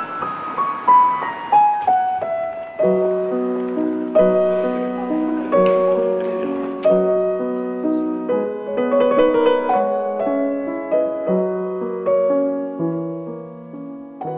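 Estonia grand piano playing a slow piece: a falling run of single notes, then, about three seconds in, chords over low bass notes.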